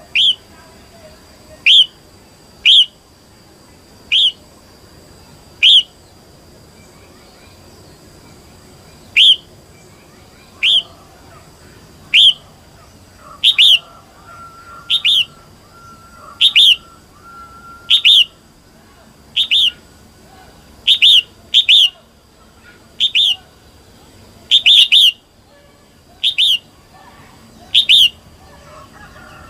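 Female red-whiskered bulbul calling: a short, sharp note repeated about every second and a half, sometimes in quick pairs, with a pause of a few seconds a quarter of the way in. It is the female's call that keepers use to stir up male bulbuls.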